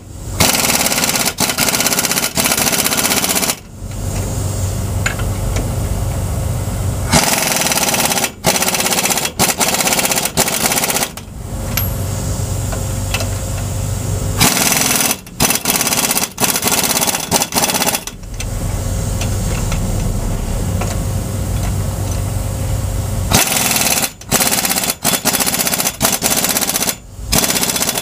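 Impact wrench tightening lug nuts that hold a knock-off wire-wheel adapter to the hub, in repeated runs of rapid hammering a few seconds long, with short stops between nuts.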